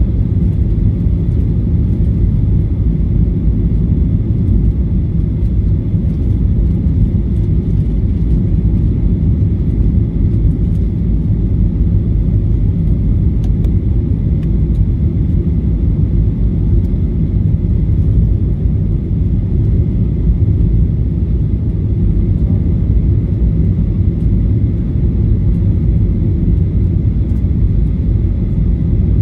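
Steady airliner cabin noise: a loud, even low rumble of engines and airflow heard from inside the passenger cabin, with faint steady high tones above it.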